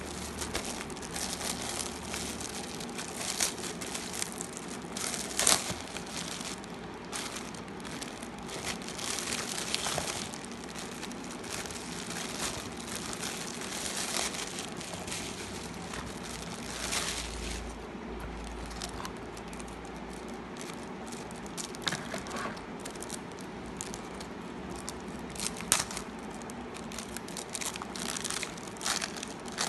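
Clear plastic bags crinkling and crackling as hands pull and unwrap them. The crackle is busy and irregular for the first half, then thins out to occasional sharper crinkles.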